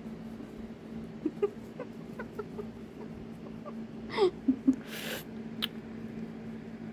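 Domestic cat vocalising during play: a run of short chirps, then a falling meow about four seconds in, followed by a brief burst of noise.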